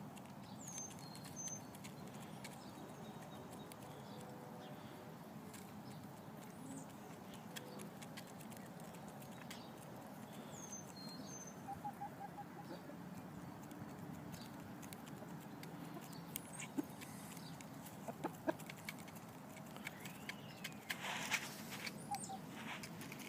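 Jersey Giant chickens clucking quietly as they forage. Toward the end come sharp clicks of beaks pecking grain from a feed bowl.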